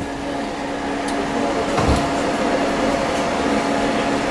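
Steady hum of the air conditioning and ventilation inside a Keikyu 1500-series commuter train car, with a constant low tone and one soft knock about two seconds in.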